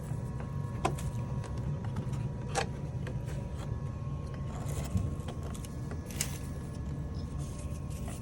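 Thin clear polycarbonate RC car body shell being handled, giving a few sharp crackles and light scraping over a steady low hum.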